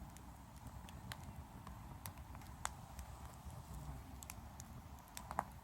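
Oak firewood burning in a fire bowl, crackling with scattered, irregular sharp pops over a faint low rumble.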